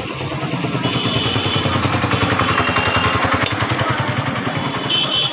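Small vehicle engine running close by with a fast, even pulse, growing louder toward the middle and easing off again. Brief high-pitched tones sound about a second in and again near the end.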